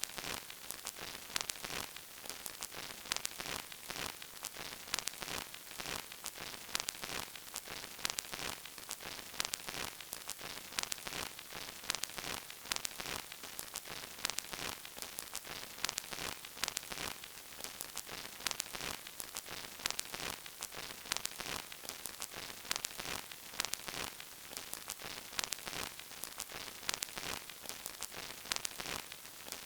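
Vinyl record surface noise: a steady hiss with irregular crackles and pops, as from an old, worn record.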